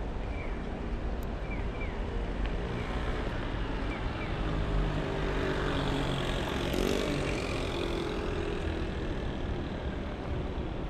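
Street traffic: a motor vehicle passes close by, its engine sound swelling and then fading through the middle, over a steady traffic hum.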